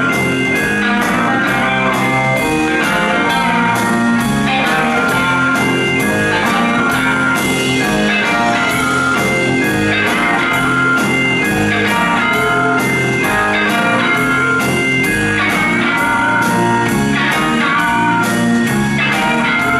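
Live band playing: electric guitars over drums, with a steady beat and evenly spaced cymbal strokes.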